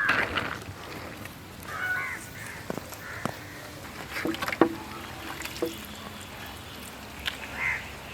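Crows cawing a few times, short harsh calls, with scattered light clicks and knocks in between.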